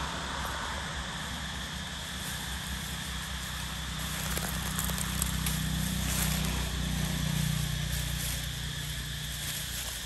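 Outdoor ambience: a steady low hum, a little stronger in the middle and fading near the end, under a faint steady high hiss, with a few light crackles.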